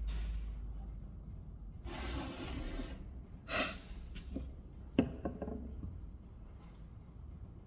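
Hand work at a workbench: about a second of rubbing or scraping, a short sharp swish, then a knock with a few small clatters as something is set down.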